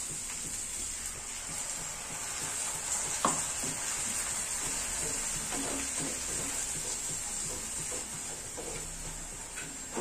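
Fried onions and poppy seed paste sizzling steadily in oil in a frying pan while a spatula stirs and scrapes, with one sharp knock of the spatula on the pan about three seconds in.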